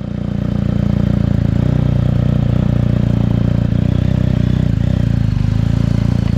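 BMW R 1250 GS boxer-twin engine running steadily at low revs as the motorcycle pulls slowly away, heard close up from a camera mounted low beside the engine.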